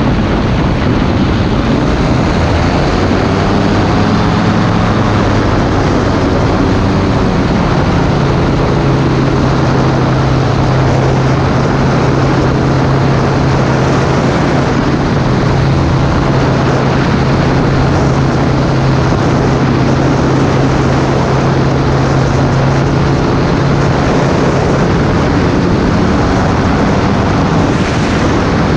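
Flexwing microlight's engine and propeller running at a steady drone, with wind rushing over the microphone. The engine note wavers in the first few seconds, then holds steady.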